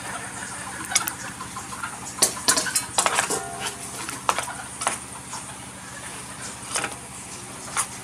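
Metal spoon clinking and scraping against the side of an aluminium stock pot as meat is shifted and basted, a string of irregular sharp clinks over a steady low hum.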